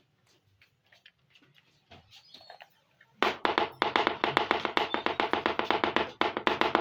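Faint taps of small plastic toy pieces being handled, then from about three seconds in a fast, even run of sharp clicks, roughly ten a second.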